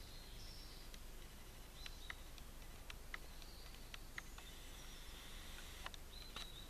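Faint insect buzzing in the trees, high and steady, coming in stretches of a second or more, with scattered light clicks.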